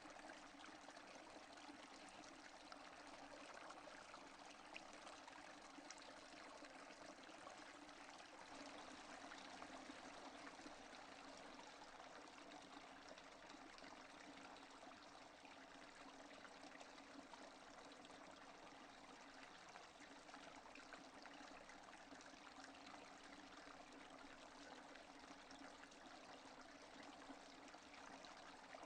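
Steady rain falling: an even, faint hiss of water with tiny scattered drops.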